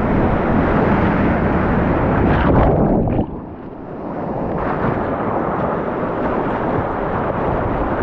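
Whitewater rapids rushing loudly right at a kayak-mounted camera, a dense roar with deep rumble and wind buffeting on the microphone. About three seconds in the sound drops and turns dull for a second or so, then comes back up.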